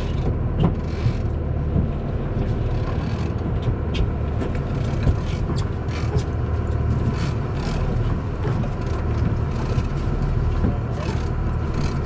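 Boat engine running steadily with a low rumble, with scattered light clicks and knocks over it.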